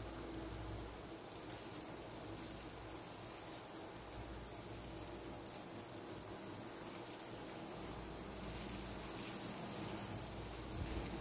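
Breaded chicken fillets frying in hot oil: a steady sizzle with fine crackling.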